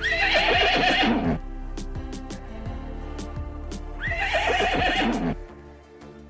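A horse whinnies twice, each call lasting about a second with a falling pitch, the second one about four seconds after the first. Background music plays underneath and drops away near the end.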